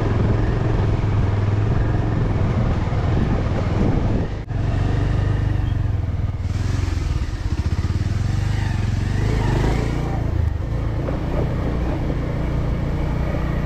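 Motorcycle engine running steadily under way, with wind rushing over the microphone on the moving bike. The sound dips briefly about four and a half seconds in.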